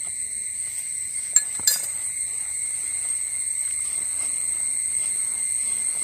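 Insects trilling steadily in a high-pitched chorus, with two light clicks about a second and a half in. Under them is a soft rubbing of a hand mixing spice paste on a banana leaf.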